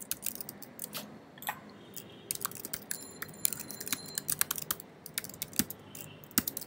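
Typing on a computer keyboard: an uneven run of quick key clicks with short pauses, entering a command in a terminal.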